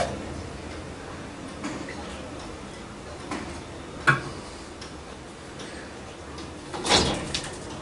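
A few short, sharp clicks and small knocks from hands handling ink-supply tubing and small parts on a workbench, over a steady low room hum. The sharpest click comes about four seconds in, and a louder, longer rustle of handling comes near the end.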